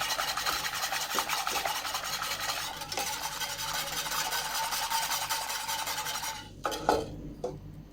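A utensil stirring and scraping rapidly against a pan of white sauce (flour, ghee and milk) as it thickens, working out the lumps. The scraping stops about six and a half seconds in.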